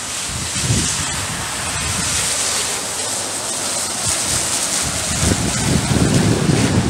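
Wind gusting and buffeting the microphone over a steady hiss of rain on a wet street. Near the end a car passes, its tyres hissing on the wet road, and the sound is at its loudest.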